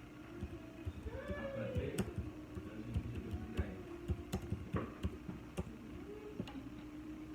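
Irregular light clicks and taps from an object being handled, coming thickest in the middle of the stretch, over a steady low hum.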